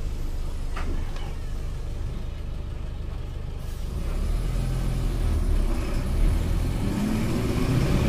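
Volkswagen 15-190 EOD city bus's 185 hp MWM 4.12 TCE four-cylinder turbodiesel running at low revs, then pulling harder from about four seconds in. Its pitch rises near the end as the bus accelerates.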